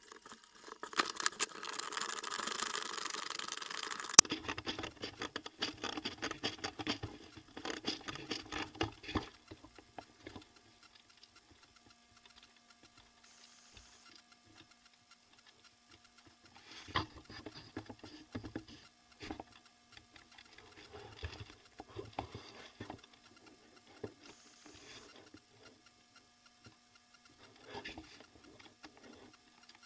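Irregular soft clicks and rustling, like movement and handling noise. A stretch of hiss over the first few seconds cuts off suddenly, and long quiet gaps follow.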